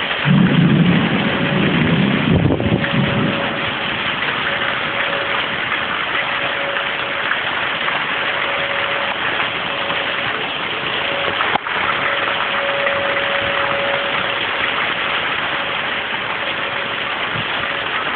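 Steady hiss of heavy thunderstorm rain and wind, with a distant tornado siren holding one tone that swells and fades over and over. A low rumble comes through in the first three seconds.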